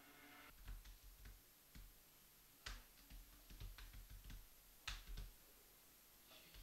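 Near silence with faint, scattered clicks and ticks, about a dozen of them, the two loudest about two and a half and five seconds in.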